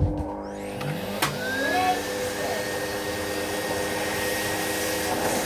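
Numatic Hetty cylinder vacuum cleaner just switched on, its motor whine rising and levelling off over the first couple of seconds, then running steadily. There is a sharp click about a second in.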